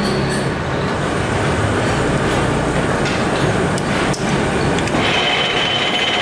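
Metal lathe and workshop machinery running steadily, with a few metal clicks midway as the tool post is set. About five seconds in, a steady high whine starts as the lathe turns the crankshaft in its chuck.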